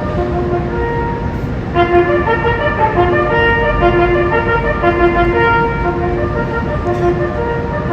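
Slow music of long held notes that move in chords, with several notes sounding together from about two seconds in. A steady low rumble of street traffic lies underneath.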